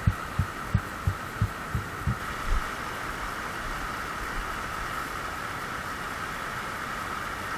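Mountain stream running steadily, with a run of soft low thumps, about three a second, over the first two and a half seconds.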